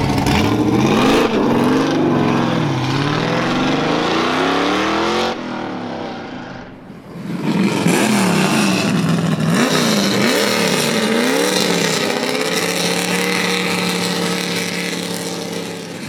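Performance car engines accelerating hard, the engine note climbing and dropping with each gear change. About five seconds in the sound cuts to another car pulling hard through several quick shifts, then holding a steadier note near the end.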